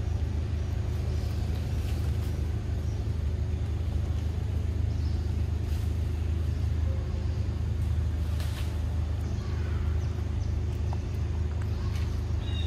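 Steady low background rumble that holds at one level throughout.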